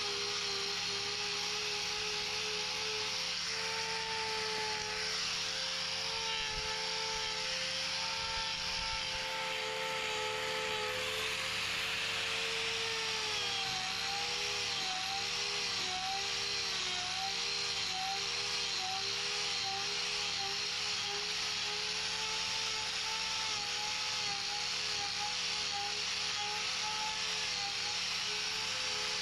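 Electric angle grinder with a trimming disc running steadily against a cow's hoof, its pitch wavering and dipping repeatedly from about halfway through as the disc bites under load.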